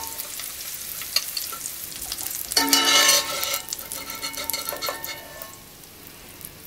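Sausage pieces sizzling in hot olive oil in a frying pan while a wire-mesh skimmer scoops them out, scraping and clicking against the pan. A louder ringing knock comes about two and a half seconds in, and the sizzle is quieter near the end.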